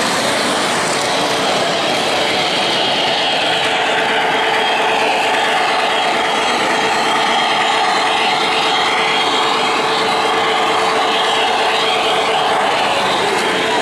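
O-gauge model train running on three-rail track: a steady rolling and motor hum with no break, over faint background chatter.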